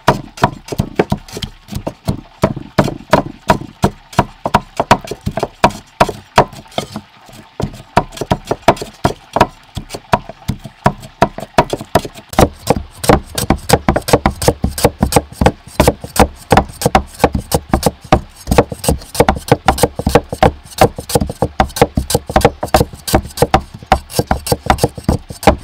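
Steel cleaver chopping rapidly on a thick wooden chopping block, mincing fish: a steady run of sharp knocks, a few strokes a second, quickening and growing heavier about halfway through.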